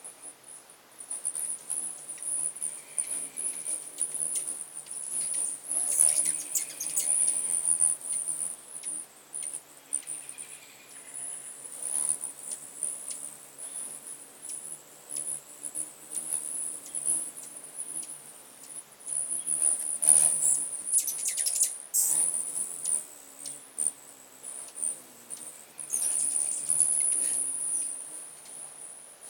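Many hummingbirds at once: the low hum of their wings under a steady high buzzing, with bursts of squeaky chittering from chasing birds, twice rising loudest.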